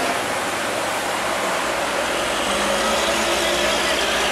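Heavy lowbed trailer truck's diesel engine running steadily as it pulls a large load up a steep hairpin bend.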